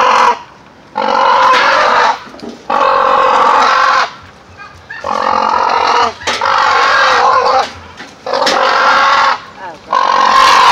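West African crowned cranes giving loud honking calls, about six in a row, each lasting about a second. This is the parents' defensive alarm against a person approaching their newly hatched chick.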